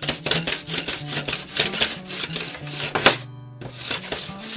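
Small hand plane scraping along a glued bamboo rod strip in quick, short strokes, taking off excess glue and enamel, with a short pause about three and a half seconds in. Background music plays underneath.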